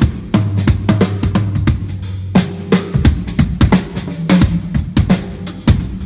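A Pearl Reference Pure drum kit (18-inch bass drum, 8- and 14-inch toms, 14-inch snare) played freely with sticks: bass drum, snare and cymbals in a loose groove with fills. A low drum rings on for about two seconds near the start.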